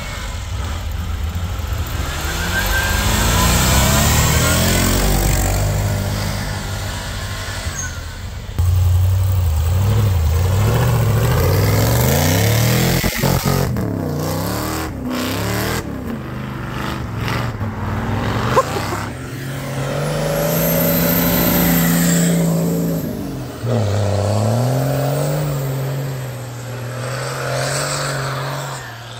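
Off-road truck engines revving and easing off over and over, their pitch climbing and dropping, with an abrupt change of sound about a third of the way in. A thin high whine rises and falls near the end.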